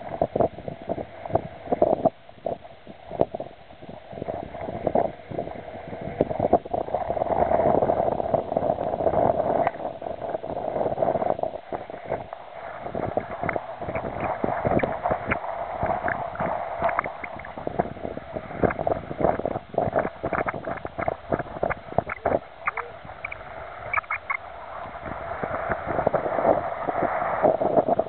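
Wind gusting against the microphone with irregular buffeting knocks, over waves washing against the rocky lake shore.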